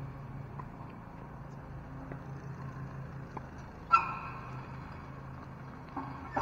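Tennis ball struck back and forth on an outdoor hard court: faint racket hits and bounces over a steady low hum, with one sharp, loud sound and a brief ring about four seconds in.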